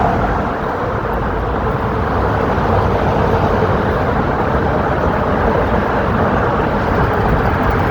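Loud, steady noise of motor traffic crossing the Queensboro Bridge.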